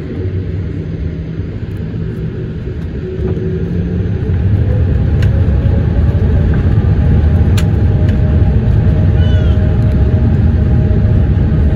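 Boeing 787 engines heard from inside the cabin over the wing, spooling up for the takeoff roll. The low rumble grows louder about three to four seconds in, then holds as a steady loud rumble, with a couple of faint sharp clicks.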